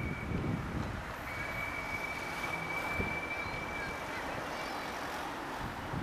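Steady low rumble of city traffic, with a thin, steady high tone running for a few seconds through the middle and a single faint click about halfway.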